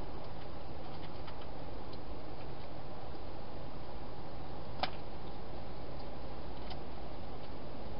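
Faint, scattered clicking of a hedgehog eating dry food from a bowl, with one sharper click about five seconds in, over a steady hiss.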